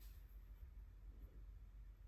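Near silence: room tone with a low hum.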